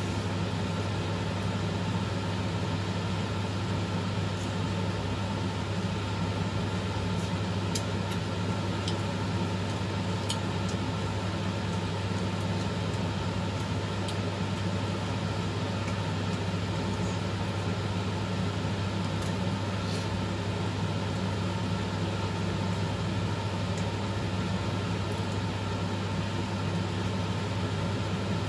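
A steady low electrical hum, unchanging throughout, with a few faint small clicks scattered through it.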